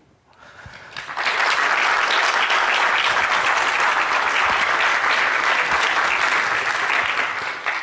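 Audience applauding: clapping that builds up within the first second, holds steady, and dies away near the end.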